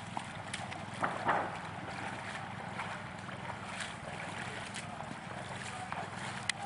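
Steady rush of flowing stream water, with scattered short clicks and a slightly louder burst about a second in.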